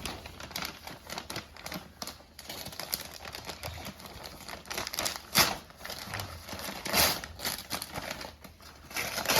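Gift wrapping paper being torn and crumpled as a present is unwrapped: a run of crackles and rips, with louder tears about five, seven and nine seconds in.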